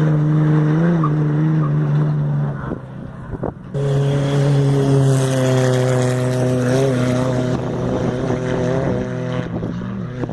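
Off-road race vehicle's engine running at a steady pitch. It drops away briefly about three seconds in, with a few sharp knocks, then picks back up.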